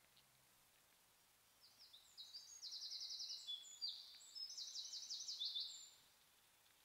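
A small songbird singing one song of fast, high-pitched trills, starting about a second and a half in and lasting about four seconds.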